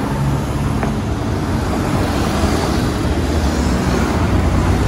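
Road traffic: cars and a van driving past close by, a steady hum of engines and tyres on the road.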